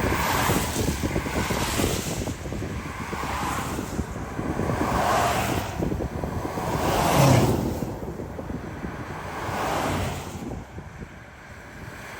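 Gusty wind rushing and buffeting the microphone, swelling and dropping every second or two, strongest about seven seconds in and easing toward the end.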